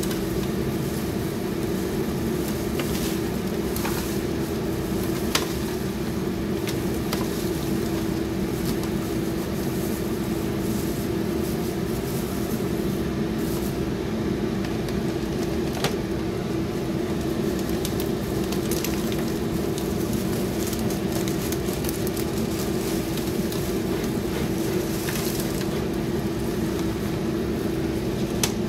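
Steady mechanical hum with a constant low tone, like a fan or motor running, with a few light crackles as plastic-gloved hands toss rice paper salad in an aluminium foil tray.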